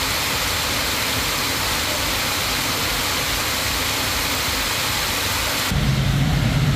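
Heavy rain pouring, a steady hiss; near the end it cuts to a lower rumble with less hiss.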